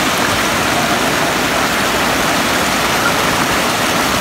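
Steady rush of water spilling over a low weir.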